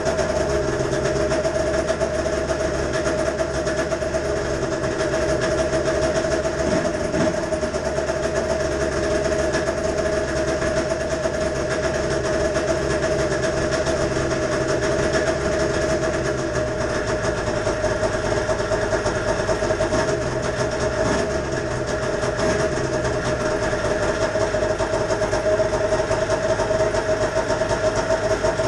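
Snowmobile two-stroke engine idling steadily as it warms up after a cold start.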